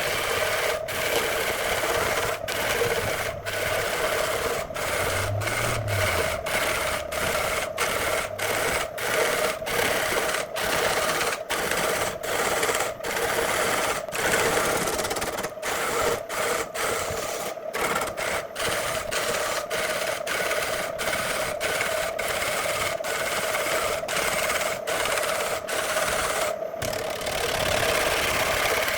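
Electric woodworking machine running steadily with a constant motor hum, with a rasping of wood being worked against it. The sound is broken by many brief dropouts.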